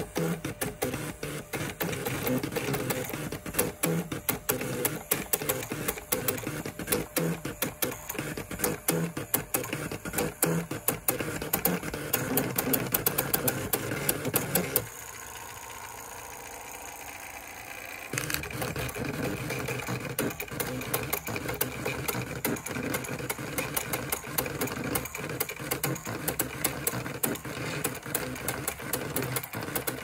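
Fortec four-colour plotting typewriter drawing Chinese characters with a pen: its motors buzz and tick rapidly as the pen head and paper roller jerk back and forth stroke by stroke. About halfway through the ticking stops for some three seconds, leaving only a quieter steady hum, then starts again.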